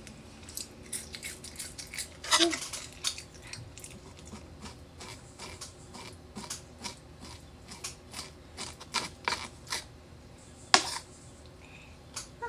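Close-miked knife and fork cutting a steak on a wooden board: a string of short clicks and scrapes of the cutlery, with chewing in between and one sharper click about eleven seconds in.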